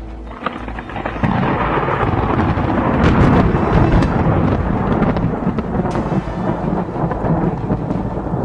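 Loud, thunder-like rumbling sound effect that swells about a second in, with scattered sharp cracks through it.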